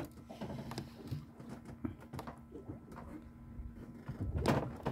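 Spinning reel being cranked under load as the angler fights a large fish, its gears giving small irregular clicks, over a faint steady hum. There is a louder brief noise about four and a half seconds in.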